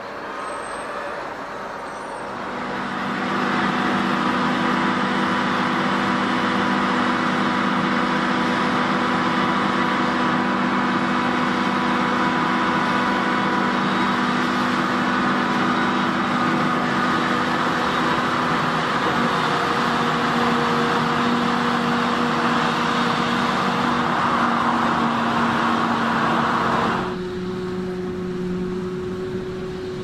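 Large farm machinery running steadily: a constant engine drone with a loud rushing whir over it. About three seconds in it swells louder, and near the end it drops suddenly to a quieter engine hum.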